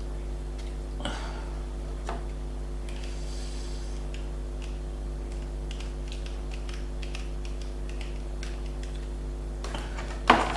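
Eating sounds: scattered soft clicks of chewing and handling a doner kebab, with a louder burst of clicks and rustling near the end. A steady electrical hum runs underneath.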